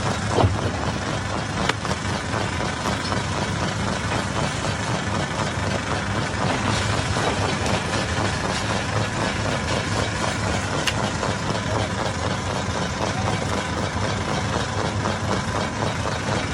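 Hammer stone crusher running steadily, a dense mechanical din with a deep hum and a few sharp knocks of rock in the machine.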